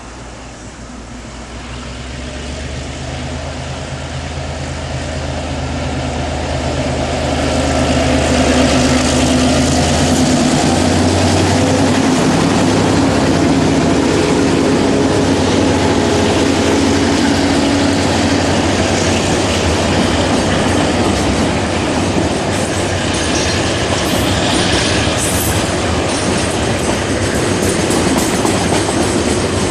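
Freight train hauled by two diesel-electric locomotives approaching and passing close by. The engines' low steady drone grows louder over the first several seconds and shifts in pitch as the locomotives go by. Then the wagons roll past with a clickety-clack over the rail joints, and a brief high wheel squeal comes near the end.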